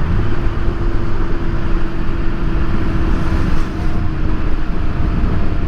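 Steady wind and road noise from a 2018 Honda Gold Wing under way, with the even drone of its flat-six engine underneath.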